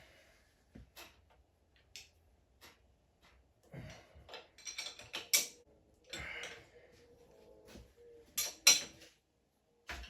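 Irregular metallic clicks, knocks and short scrapes of tools and motorcycle fork parts being handled, with a couple of louder knocks near the end.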